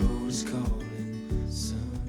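Background music: an acoustic guitar song with a steady beat.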